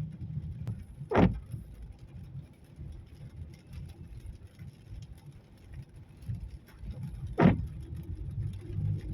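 Car running in traffic, heard from inside the cabin as a steady low engine and road hum. Two short, sharp knocks come about six seconds apart.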